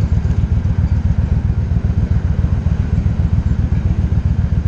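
Yamaha XVS1100 Drag Star's air-cooled V-twin idling, a loud, fast, steady low throb.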